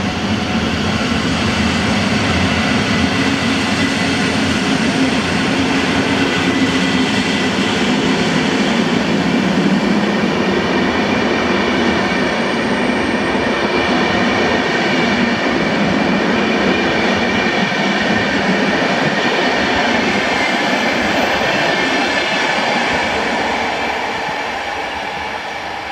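PKP Intercity passenger coaches rolling past along the platform track: a steady rush of wheel-on-rail noise that fades over the last few seconds as the rear coach draws away.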